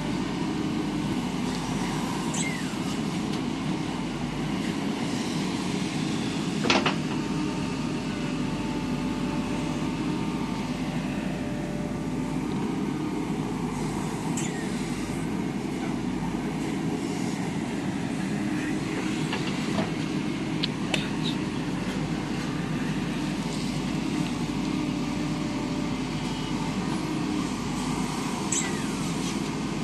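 Diesel engine of a JCB 3DX backhoe loader running steadily under working load, with occasional sharp knocks. The loudest knock comes about seven seconds in.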